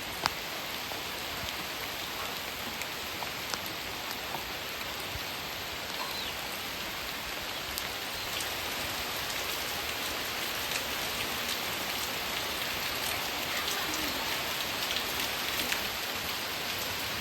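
Steady rain falling, with scattered sharp drop hits through the hiss; it grows slightly heavier over the second half.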